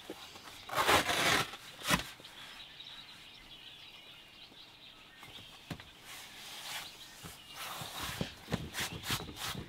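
Hands handling and pressing a molded rubber seat-back cover onto a folded rear seat: a scratchy rustle about a second in, a sharp knock about two seconds in, then a run of short pats and taps near the end as the mat is smoothed down.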